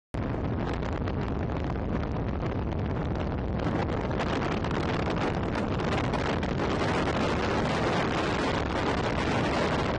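Wind buffeting the microphone at the open window of a moving car, a steady rushing noise with the car's road noise underneath.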